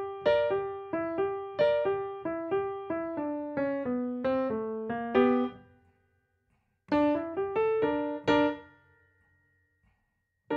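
Grand piano playing the right-hand part of a boogie-woogie tune alone at slow tempo: repeated treble notes, then a falling run of notes, a pause of about a second, a short rising phrase, and another pause before the playing picks up again at the end.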